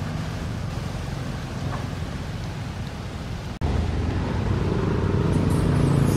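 A motor vehicle's engine running steadily nearby, over a constant hiss. It gets louder and hums more clearly after an abrupt cut about three and a half seconds in, then stops short.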